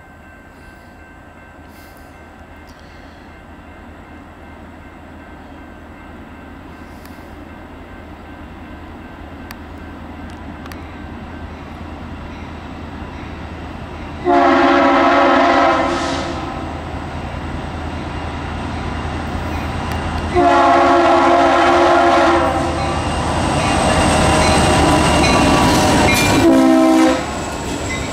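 EMD SD40-2 diesel locomotive approaching, its engine and train noise growing steadily louder. About halfway through it blows its air horn in two long blasts and then a short one near the end, the opening of the long-long-short-long grade-crossing signal. Wheels rumble and clatter as the locomotive and cars pass.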